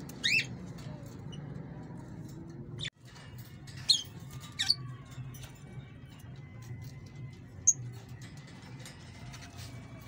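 Caged parrots giving short, high, squeaky calls, four or five single chirps a second or more apart, over a low steady background rumble.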